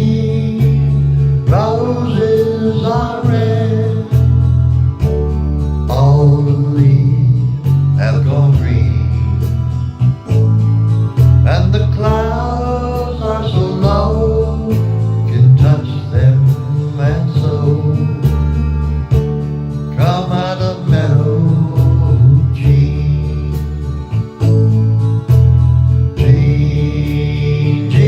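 A song: a singing voice with vibrato over strummed guitar and a bass line that changes note about every second, in a country style.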